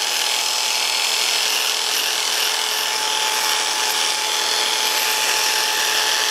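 Brand-new electric hair clippers running with a steady buzz as they cut through short hair at the side and back of a man's head.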